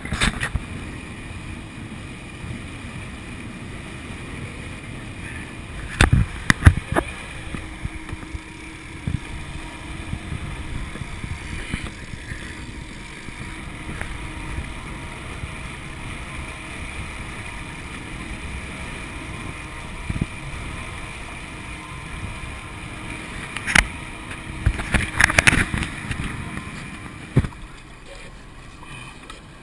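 Boat running on twin Honda outboard motors: a steady engine and water rumble with wind on the microphone. A few sharp knocks come about six seconds in and again around twenty-five seconds.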